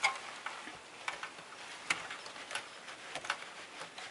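Small, irregular clicks and ticks of small hand tools working a tiny screw into the plastic and metal housing of a Porsche PCM head unit, about one or two clicks a second.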